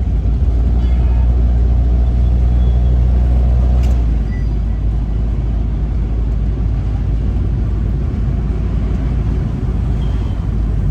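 Car engine and road rumble heard from inside a moving cab, a deep steady rumble that eases a little about four seconds in.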